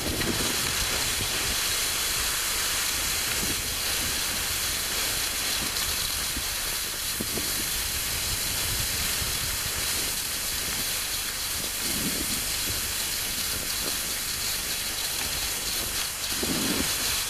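Steady rushing hiss of skis gliding fast over snow, mixed with wind blowing on the microphone, as the skier is towed along by a dog.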